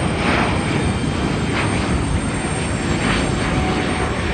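Airbus A350-900's Rolls-Royce Trent XWB turbofans at takeoff power as the airliner climbs away: a loud, steady, rushing rumble with irregular swells of hiss.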